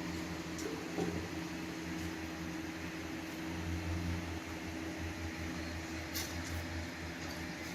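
Steady low mechanical hum over a constant hiss, with no crowing; a faint click or two.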